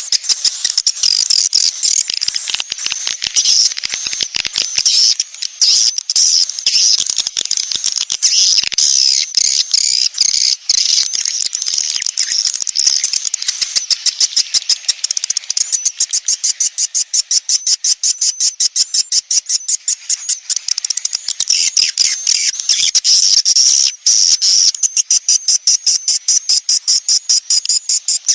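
Swiftlet colony calls: a dense, continuous high-pitched twittering made of rapid clicking pulses, more evenly spaced in the second half. It is a 'sedot anakan' swiftlet lure call, the kind played to draw young swiftlets into a nesting house.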